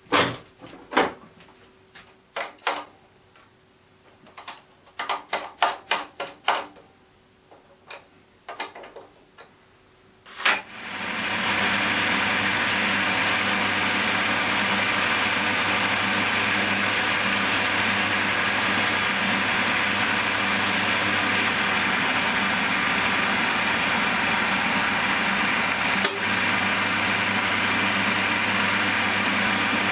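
Sharp metal clicks and knocks while the bit in the drill chuck is changed from a centre drill to a tapping-size drill. About ten seconds in, the drilling machine's motor starts and runs steadily as the drill bores into a cast locomotive wheel.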